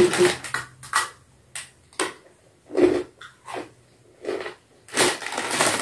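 Crunching and chewing of crisp fried murukku, in short irregular bites with quiet gaps between them.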